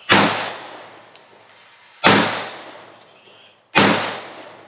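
Three pistol shots, the first two about two seconds apart and the third a little sooner, each sharp crack trailing off in a short echo.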